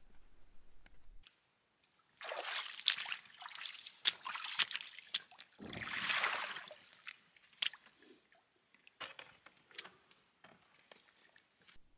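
Water sloshing and splashing in a run of short bursts, with one longer slosh about six seconds in, then a few scattered drips and small knocks.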